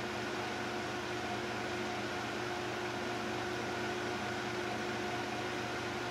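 Steady hum and hiss of running electronic equipment, with a faint whine in it.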